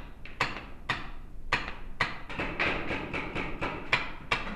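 Paintball markers firing in a large echoing hall: single shots about every half second at first, then a quicker run of shots from about halfway through.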